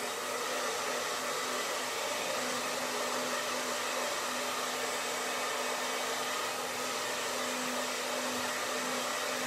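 Handheld hair dryer blowing steadily on wet gouache paint, an even rush of air with a steady motor hum beneath it.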